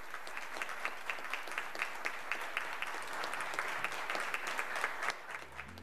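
Applause from a chamber of legislators: a dense patter of clapping with single claps standing out at a steady beat, about four a second. It dies away about five seconds in as music begins.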